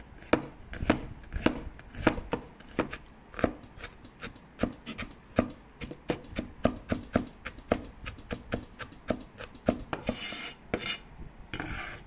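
Chinese cleaver chopping shallots on a bamboo cutting board: a steady run of sharp knocks, two or three a second. Near the end, two short scrapes of the blade across the board.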